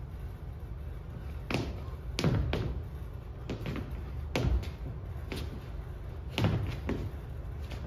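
A dancer's shoes landing and stamping on a stage floor: about a dozen irregular thuds and knocks, some in quick pairs, each with a short ring.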